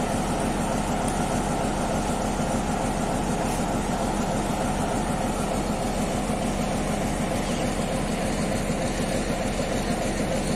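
Diesel locomotive engine idling steadily, a constant low drone with a steady hum.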